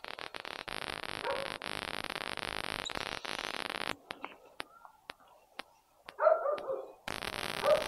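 A steady rushing noise that cuts off abruptly about four seconds in, then a dog barking in a short burst of several barks about six seconds in.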